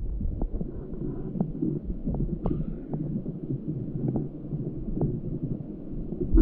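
Muffled low rumble of a small forest stream and its waterfalls heard underwater, with irregular sharp little ticks scattered through it.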